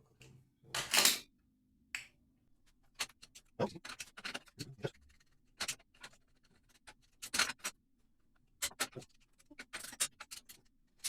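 Irregular clicks, knocks and short scrapes from a wall-mounted kitchen tap and its fittings being handled and turned by hand to level the tap. The loudest knock comes about a second in.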